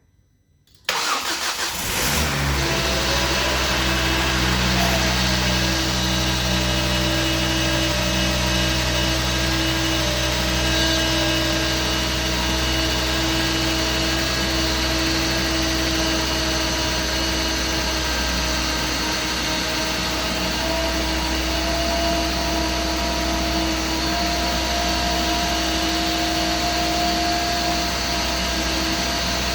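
A rebuilt Ford Mondeo XR5's engine starting for the first time after its rebuild: it catches suddenly about a second in, flares briefly, then settles into a steady idle.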